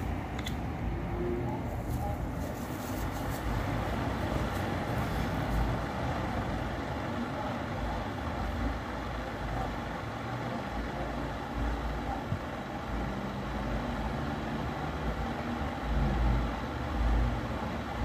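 Britânia electric table fan running on a newly fitted replacement blade, a steady whir with a faint motor hum, under an irregular low rumble.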